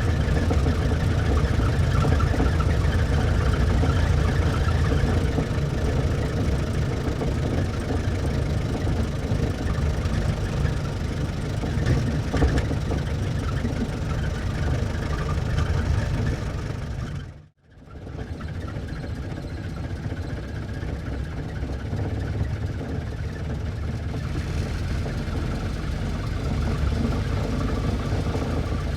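1924 Ford Model T's four-cylinder engine running steadily. About 17 seconds in it cuts out briefly, then the engine is heard running again.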